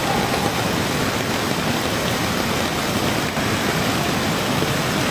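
Fast-flowing muddy floodwater of an overflowing creek rushing past, a steady, even noise that hardly changes.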